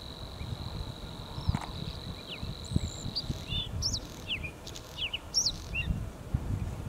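Male bluethroat singing: a quick run of varied high chirps and sweeping notes, starting a little before halfway and stopping near the end. Under the first half runs a steady, high, thin insect buzz.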